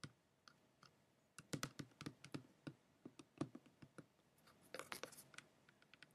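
Faint close-up clicks and scratches of fingers brushing and rubbing near the microphone as a mimed run of hands over hair, densest from about a second and a half in to about five seconds in.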